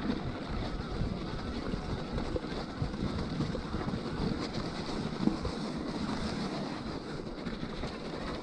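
Wind buffeting the action camera's microphone while riding an e-mountain bike over a snowy trail, mixed with tyres rolling through snow and small knocks of the bike over bumps; one sharper knock comes about five seconds in.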